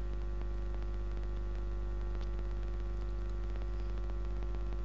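Steady electrical mains hum with a low buzz and a background hiss, with a few faint clicks.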